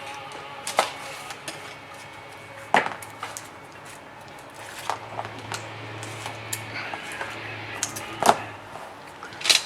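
Scattered sharp clicks and taps of small repair tools handled against a phone and the workbench, four of them louder than the rest, with a faint low hum in the middle.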